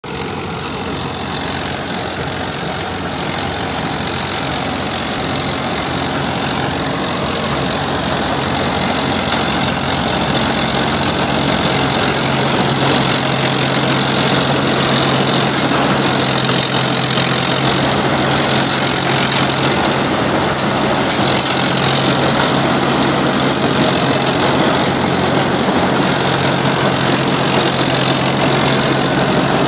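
Swaraj 963 FE tractor-mounted combine harvester working in the crop: a steady engine drone mixed with the running of the harvester's belts, pulleys and cutting gear. The sound grows louder over the first dozen seconds, and a steady low hum joins in about twelve seconds in.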